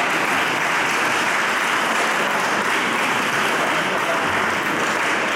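Audience applauding, steady clapping held at an even level throughout.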